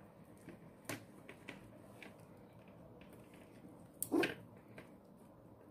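Faint clicks and rustles of clear faceted beads knocking together as a beaded band is handled and a knot is tied in the fishing line, with one louder short clatter about four seconds in.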